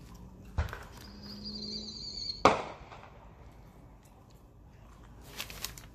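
A firework whistling for about a second and ending in a sharp bang, with a few quieter pops near the end. A single thump comes about half a second in.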